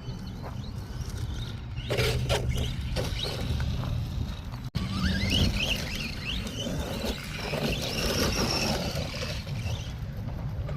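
ARRMA Vortex RC car's brushless electric motor whining as it is driven hard over dirt and gravel, with crunching impacts a couple of seconds in. About halfway through, the whine rises in pitch in several quick spurts as the car accelerates.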